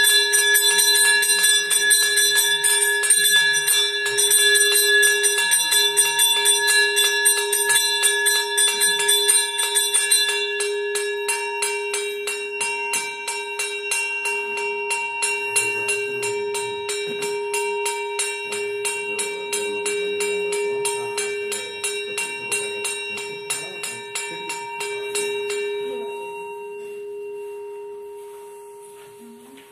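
A temple bell is rung rapidly and without a break, a dense, even stream of metallic strokes over a steady ring, as worship is offered to the deity. It is loudest at first and grows softer. The strokes stop about 26 seconds in, and the ring dies away.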